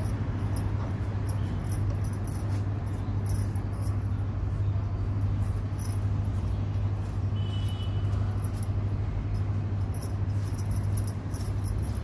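Bangles on the wrists jingling lightly in short, repeated clusters as the hands massage a baby. Under them runs a steady low hum.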